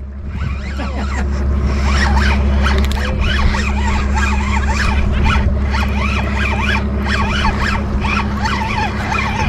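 Spinning reel being cranked fast, a quick rhythmic whirring as a fish is reeled in, over a steady low rumble.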